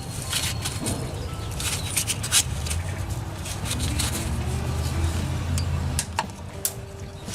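Scattered sharp plastic clicks and light clatter of electrical connectors being worked off ignition coil packs, over a steady low rumble that grows heavier in the middle and eases off near the end.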